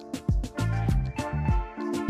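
Background music with drums and a bass line.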